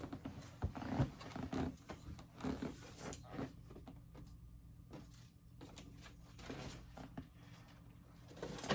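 Faint scattered clicks and rustling handling noises, busier over the first few seconds, then quieter with only a few small ticks.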